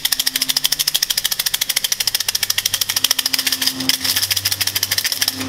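Kau cim fortune sticks rattling in their cylinder as it is shaken hard and steadily, a fast even clatter of about nine clacks a second. This is the shaking that continues until a stick falls out.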